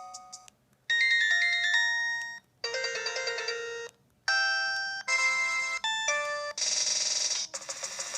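LG VX3450 cell phone playing its built-in electronic ringtones through its speaker: a string of about seven short melodies, each lasting a second or so and cutting off abruptly before the next begins, starting about a second in. The last two are buzzier than the rest.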